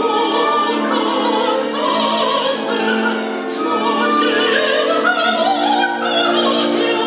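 Opera singers and chorus singing a lament with orchestra, the voices holding long notes with vibrato. A phrase rises near the end.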